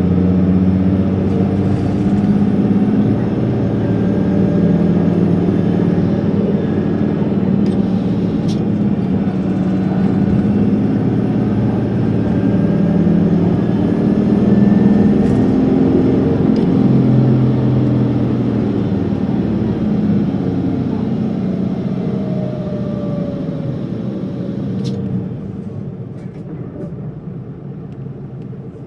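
Isuzu Erga city bus's diesel engine running under way, heard from inside the passenger cabin, its note rising and falling as the bus drives along, with a few sharp clicks. The sound gets quieter over the last few seconds as the engine eases off.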